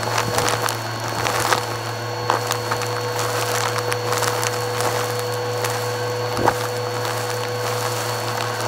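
Bissell Purple Helix vacuum running with its dusting brush tool on the hose, sucking up a pile of lint, dust and glitter. A steady motor whine comes with constant crackling and clicking as debris rattles into the brush and hose, with one sharper click about six and a half seconds in.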